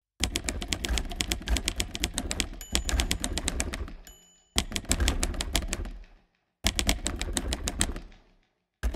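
Typewriter keys clacking rapidly in three runs broken by short pauses, with a bell ding about four seconds in.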